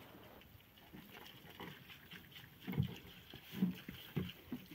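Soft thumps and scuffs of someone moving about and handling things: three dull knocks in the second half, otherwise quiet.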